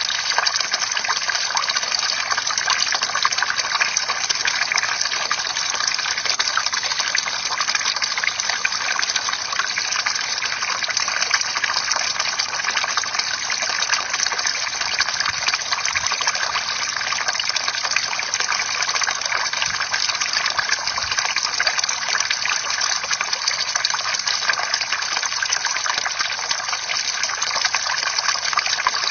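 Bamboo water fountain: water pouring and splashing steadily, with a fine patter of drops.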